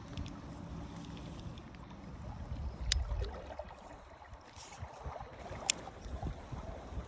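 Low wind rumble on the microphone over moving river water, with two sharp clicks, about three and six seconds in, from the spinning rod and reel being handled for a cast.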